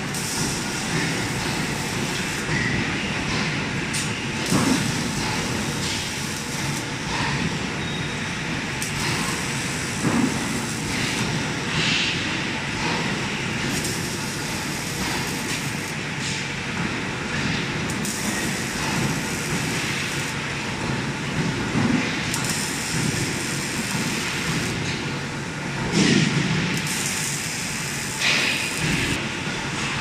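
Automated cable tray welding and handling line running: steady machinery noise with a hiss that switches on and off every few seconds, and occasional knocks.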